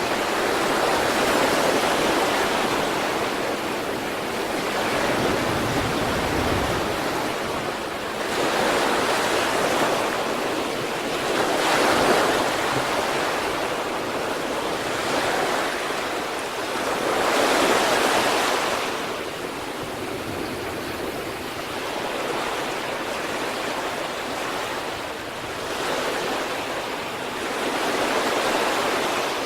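Ocean waves breaking and washing on the shore, a continuous rush of surf that swells with each wave every few seconds and eases between them.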